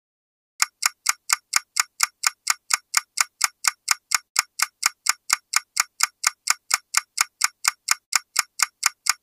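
Countdown-timer clock ticking sound effect: sharp, even ticks, about four a second, starting just under a second in.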